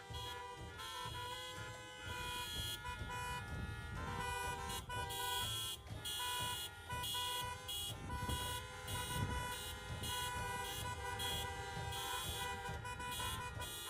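Many car horns honking at once: several held tones of different pitches overlapping, some cutting in and out, over a low rumble.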